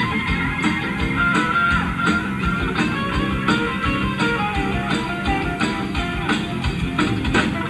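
Rock-and-roll band music with guitar over a steady drum beat.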